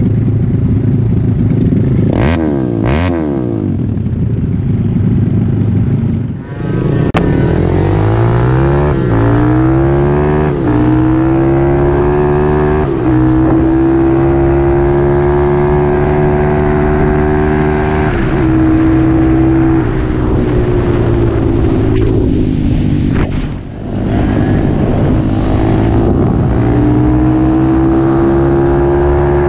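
Mini bike's single-cylinder engine, a ZS190 swapped into a Honda CT70, accelerating hard up through the gears. Its pitch climbs and drops at each shift, with a quick rev up and down about two seconds in.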